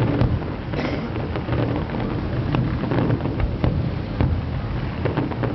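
Aerial fireworks going off: sharp cracks and bangs about every second over a continuous low rumble of booms.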